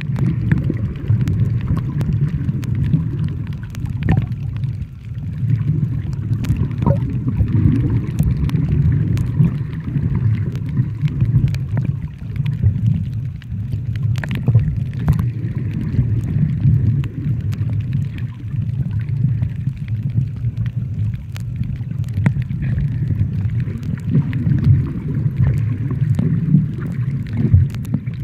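Underwater ambience heard from below the sea surface: a steady, muffled low rumble of moving water, with scattered sharp clicks throughout.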